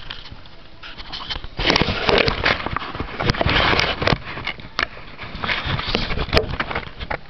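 Handling noise of a camera being moved about and set down: rustling, scraping and sharp knocks against the microphone, heaviest from about one and a half to four seconds in.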